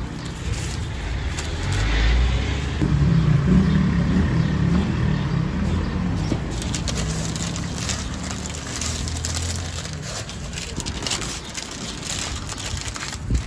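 Street traffic: a motor vehicle running close by, its low rumble building about two seconds in and easing off after about seven seconds, over general street noise.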